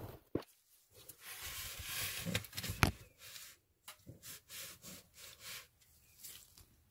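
Handling noise as the camera and circuit board are repositioned: a brushing, sliding rustle for a couple of seconds ending in a sharp click, then several short faint rustles.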